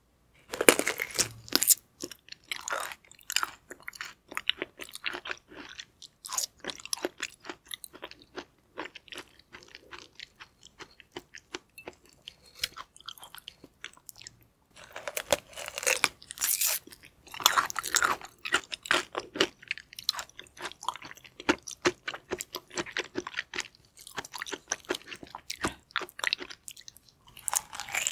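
Close-miked eating sounds: bites into a whole yellow stingray liver and moist chewing with many small clicks and smacks. The bites are loudest just after the start, again about halfway through and once more near the end.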